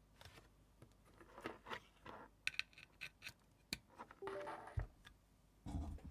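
Handling noise from a 60% mechanical keyboard being moved and handled on a hard surface: scattered light clicks and short scrapes, one longer scrape about four seconds in, and a soft thump near the end. Not a typing rhythm.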